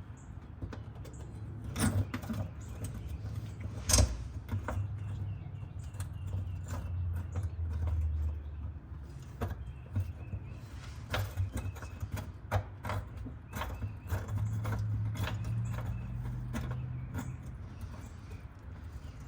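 Scattered clicks and knocks of hand work on a car part being worked loose, with one sharp knock about four seconds in, over a low hum that swells and fades.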